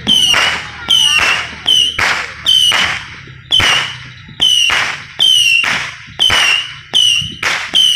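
Mad Ox 100-shot Saturn missile battery firing shot after shot, about a dozen in quick, uneven succession. Each shot is a brief high whistle followed by a sharp crackling hiss.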